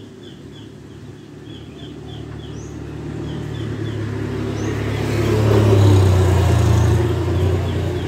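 A motor vehicle passing: a low engine hum that grows louder to a peak about six seconds in, then eases off. A small bird chirps in quick, repeated short notes throughout.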